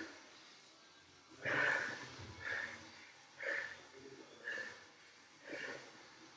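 A man breathing hard after an all-out workout, with a heavy, noisy breath about once a second.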